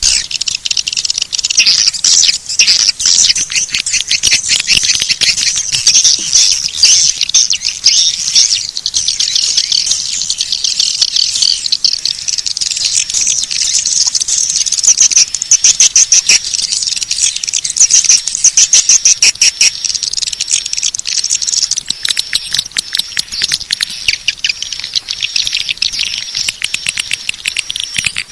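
Edible-nest swiftlet call sound: a dense, continuous twittering of rapid, high chirps and clicks. It is a swiftlet lure (call) recording of the kind played to draw swiftlets in.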